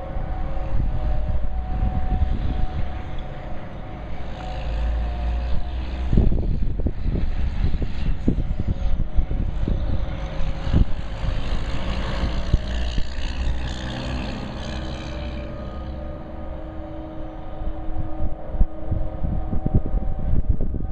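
Federal Signal outdoor warning sirens sounding steady tones at a distance. Through the middle they are buried under a loud passing-vehicle rush and wind buffeting the microphone, then come back clear near the end.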